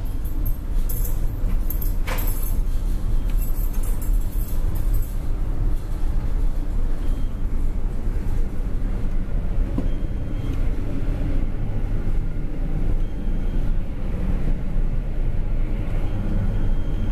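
Steady low rumble of a container ship's engine and machinery, carried through the accommodation decks. A sharp click comes about two seconds in, and there is light clicking and rattling in the first few seconds.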